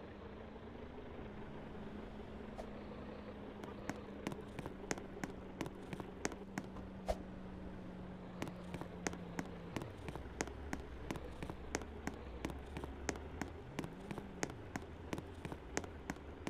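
A vehicle engine running, its pitch rising and falling and then settling lower about ten seconds in. From about four seconds in it is joined by a quick irregular run of sharp clicks, about three a second.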